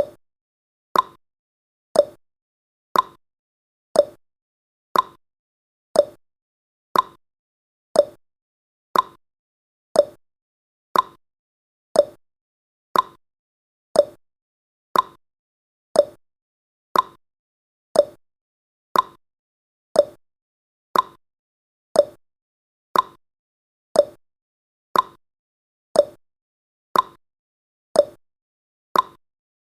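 Countdown timer's clock-tick sound effect: short sharp ticks exactly once a second, with silence between them.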